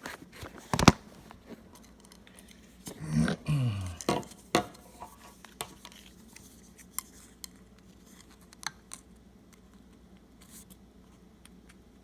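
Scissors snipping a plastic drinking straw: a few sharp clicks and cuts with handling noise, thinning to scattered faint ticks in the second half. A brief murmur of a man's voice comes about three seconds in.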